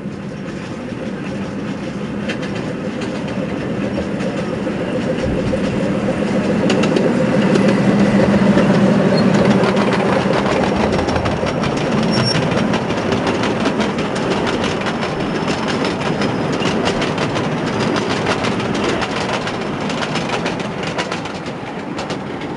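Miniature railway train with a long rake of coaches running past, its wheels clicking over the rail joints under a steady hum, growing louder to a peak about eight seconds in and then slowly fading.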